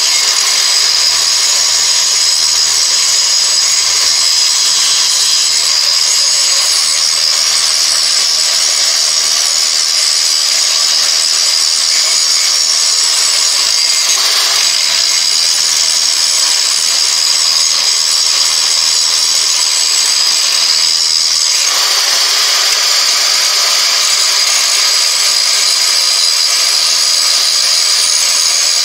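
Angle grinder with a grinding wheel running continuously, grinding down the steel of an old metalworking file clamped in a vise. A steady, loud high whine with grinding hiss, its tone shifting slightly about 21 seconds in.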